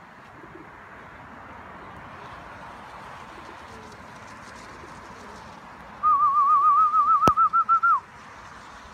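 A loud warbling whistle about six seconds in, held for about two seconds with a quick regular wobble in pitch and ending in a short downward slide, over a steady background hiss. A single sharp click sounds partway through the whistle.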